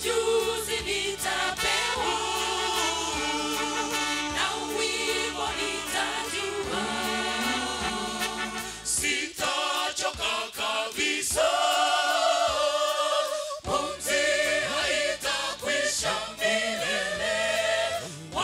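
Mixed church choir of women and men singing a Swahili gospel song into handheld microphones. The low bass notes drop out for a few seconds about halfway through, then return.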